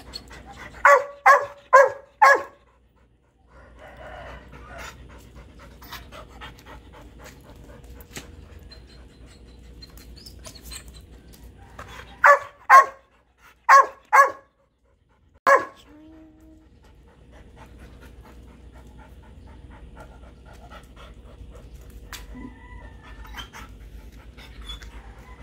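A dog barking in two quick runs, four short barks about a second in and five more between about twelve and sixteen seconds in, with a dog panting in between.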